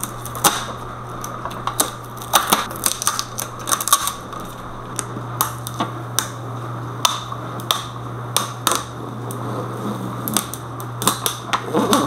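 Plastic protective film and a paper label being peeled off a new espresso machine, crackling with irregular sharp clicks and pops over a steady low hum.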